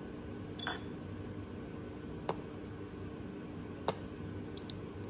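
Three light clinks of kitchen utensils about a second and a half apart, the first the loudest with a brief ring, followed by a couple of faint ticks, over a steady low hum.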